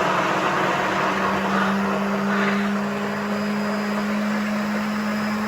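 Electric blender running steadily with an even low hum, blending banana and blueberries into a lassi.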